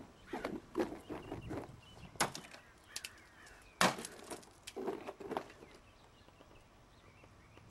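Eggs smashing against parked cars: two sharp cracks about a second and a half apart. Short vocal sounds come before and after the cracks.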